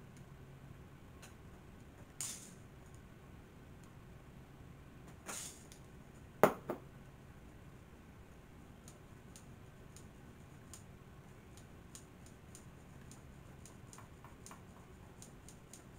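Small scattered clicks and taps of hands and tools working cleaner into a cassette recorder's multifunction switch, with two short hisses and one sharp click about six and a half seconds in, over a faint low hum.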